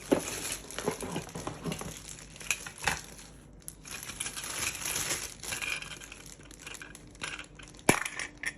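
Plastic packaging crinkling and rustling as parts are handled and unwrapped, with scattered small clicks and one sharp click near the end.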